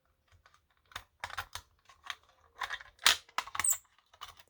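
Key being worked in the lock of a Simplex T-bar fire alarm pull station to reset it: a run of irregular metal and plastic clicks and clacks, the loudest a little past three seconds in.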